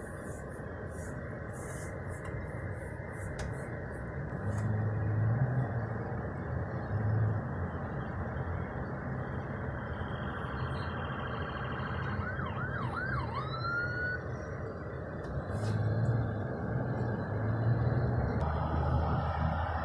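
Steady road and engine noise heard from inside a moving car. About twelve seconds in, a brief siren makes three quick up-and-down sweeps and then one rising sweep.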